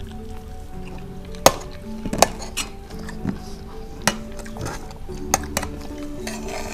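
Spoons clinking and scraping on plates as two people eat, a sharp clink every second or so, over soft background music with held notes.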